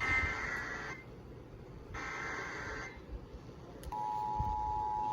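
Emergency Alert System SAME header: two harsh digital data bursts, about a second each and a second apart. About four seconds in, the steady two-tone EAS attention signal starts. Together they mark the start of a new emergency alert, here a flash flood warning.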